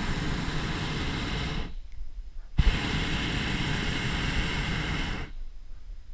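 Hot air balloon's propane burner firing in two blasts: one cuts off about a second and a half in, and the next starts sharply about two and a half seconds in and runs for nearly three seconds.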